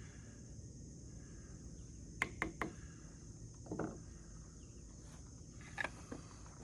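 Steady high-pitched chirring of insects such as crickets, with three quick sharp clicks about two seconds in, a duller knock a second later and a couple more small clicks near the end.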